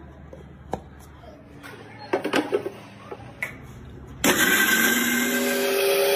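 A few clicks and knocks as a steel mixer-grinder jar is handled and fitted onto its base, then about four seconds in the electric mixer-grinder motor switches on and runs loud and steady, its whine rising slightly as it spins up, grinding peanuts, coconut and curd.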